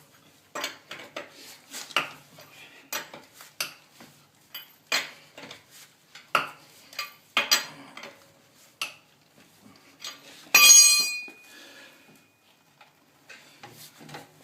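Irregular metallic clacks and clinks of a lug wrench working the wheel lug nuts loose. About ten and a half seconds in, one loud ringing metal clang sounds for about a second.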